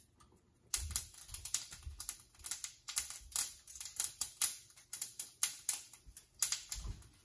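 Mustard seeds popping and crackling in hot oil in a pan: a rapid, irregular run of sharp clicks that starts about a second in. The popping is the usual sign that the oil is hot enough for tempering.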